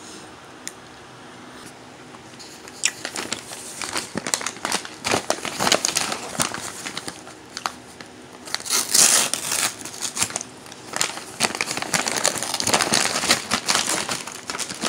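Plastic snack packet crinkling and crackling as it is handled and torn open by hand: rapid irregular crackles that start about three seconds in and are loudest around the middle.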